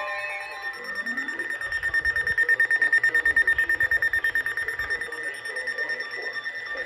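Weather alert radio sounding its alert alarm: a high-pitched electronic tone beeping rapidly, loudest in the middle. It signals an incoming severe weather warning.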